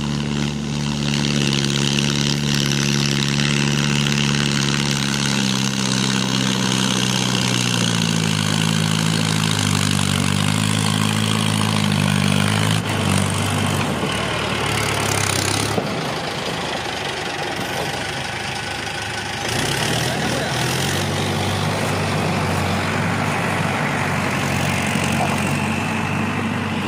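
Mahindra Arjun 555 tractor's diesel engine running under load as it pulls a fully loaded trolley over gravel. The engine note slowly drops in pitch over the first half. About halfway through a rough, noisy stretch of several seconds partly covers it as the tractor passes close, and then the engine note returns lower.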